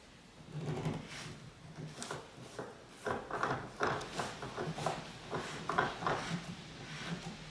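Turned wooden sofa leg being screwed on by hand through the fabric skirt: an irregular run of rubbing, creaking and small knocks as the leg is turned and the upholstery fabric shifts against it.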